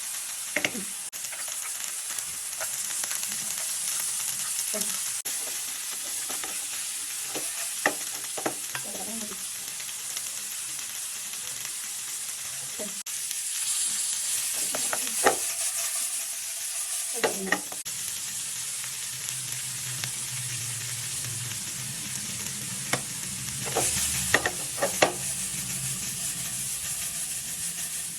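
Chow mein stir-frying in a pan: a steady sizzle, with a utensil clicking and scraping against the pan every few seconds as the noodles are tossed. A low hum joins in for several seconds past the middle.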